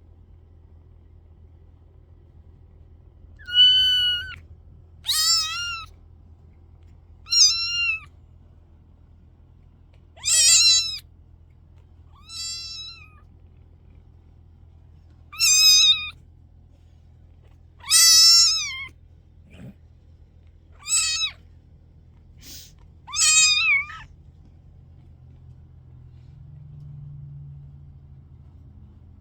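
A young kitten meowing, about ten short, high-pitched mews every second or two, some bending in pitch, before falling quiet for the last few seconds.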